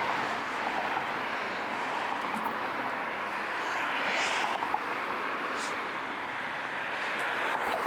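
Steady rushing noise of street traffic passing, with a few faint ticks.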